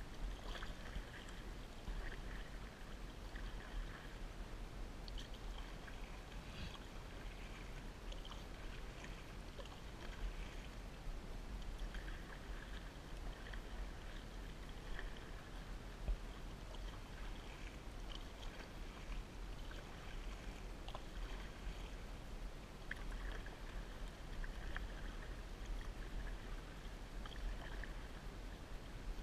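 Canoe being paddled: water splashing and trickling off the paddle and lapping at the hull in small recurring bursts every second or two, over a low steady rumble.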